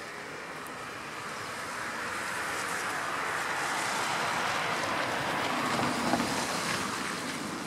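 A road vehicle passing: a broad rush of tyre and road noise that swells over the first few seconds, then eases slightly near the end.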